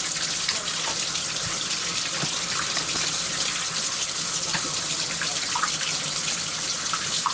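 Water running steadily in a bathtub as a dog is washed, with light splashes.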